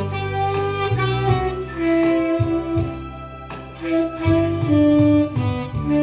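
Saxophone playing a slow melody of long held notes that slide between pitches, over an accompaniment with a steady bass line and regular percussion ticks.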